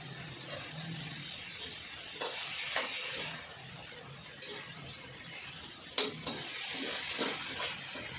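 Food sizzling in a frying pan while a spatula stirs it, with a few sharp knocks and scrapes of the utensil against the pan.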